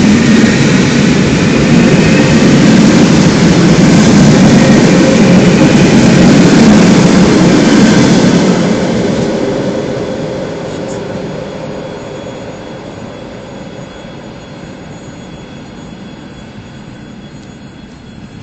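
ED4M electric multiple unit running past on the near track: a loud rumble of wheels on rail that holds for about eight seconds, then fades steadily as the train pulls away.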